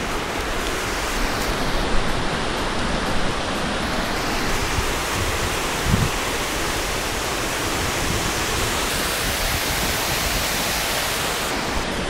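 A steady, even rushing noise, with a thump about two seconds in and another about six seconds in.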